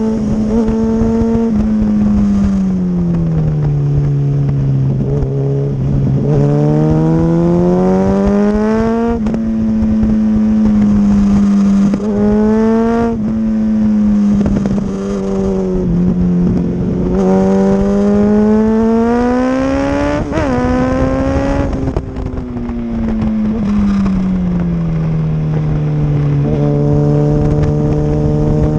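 Motorcycle engine on a race track, revving up through the gears with several sharp drops in pitch at the shifts, and slowing with the revs gliding down twice into corners, over steady wind rush.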